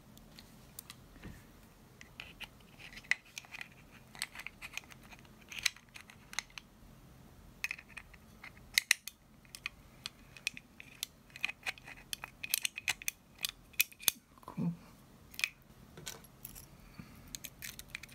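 Irregular sharp metallic clicks and clinks of small steel parts being handled and fitted by hand: the hammer and trigger group of a VFC FN FNC gas blowback airsoft rifle being worked on. There is one duller knock about fourteen seconds in.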